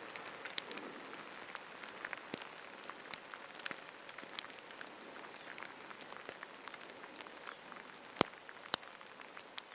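Steady rain falling, with many small ticks of single drops throughout and two louder taps about eight seconds in, half a second apart.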